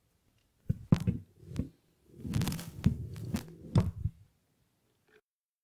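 Handling noise: a few dull thumps and knocks, then about two seconds of rustling with more knocks in it, cutting off to dead silence near the end.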